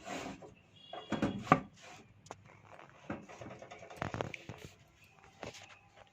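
Scattered knocks and clicks of a hard drive and metal PC cabinet being handled as the drive is fitted into its bay, loudest about a second in and again about four seconds in.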